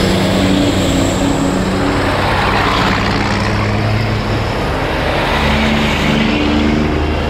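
Diesel engines of a convoy of vintage semi trucks running as they drive past one after another, with tyre rush. A broad swell of a truck passing close about halfway through.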